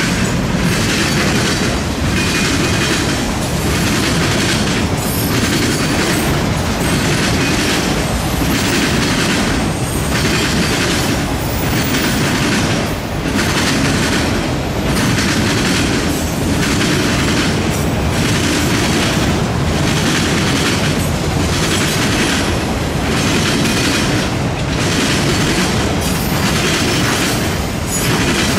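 Autorack freight cars rolling past close by: a loud, steady rumble of steel wheels on rail that dips and swells about every second and a half.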